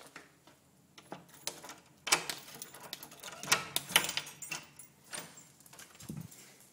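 A run of clicks, knocks and rattles as a metal lever door handle is worked and its latch released, loudest about two to four seconds in.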